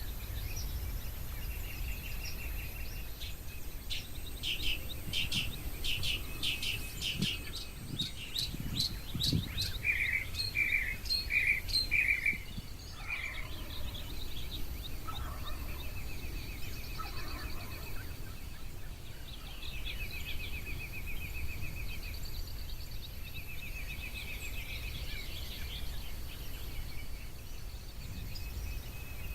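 Several wild birds calling and singing: a quick series of sharp chirps, then four louder clear notes about halfway through, and rapid trilled phrases in the second half, over a steady low background rumble.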